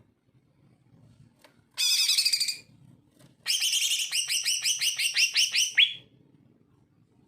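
Male green leafbird (cucak ijo) singing loudly: a short warbled phrase, then after a brief pause a longer run of rapid repeated notes, about six a second, ending on a rising note.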